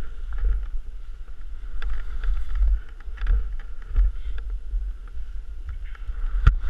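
Skis sliding and scraping over snow while skiing downhill, with a steady low rumble of wind on the camera's microphone. A few short knocks of skis and poles against the snow, the sharpest near the end.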